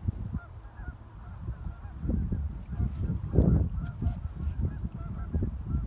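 A flock of geese honking continuously in the distance, many overlapping short calls, over a low, uneven rumble that swells briefly about halfway through.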